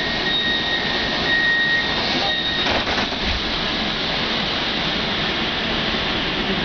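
Door-closing warning tone on a CAF Urbos 3 tram, a steady high beep with a few short breaks. It stops and the sliding doors shut about two and a half seconds in, then the tram's steady running noise.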